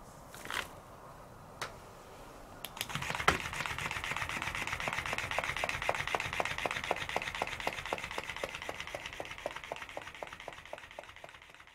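Electric flopping-fish cat toy starting up a little under three seconds in: its small motor whirring and its tail flapping with a regular ticking about four times a second, slowly fading toward the end.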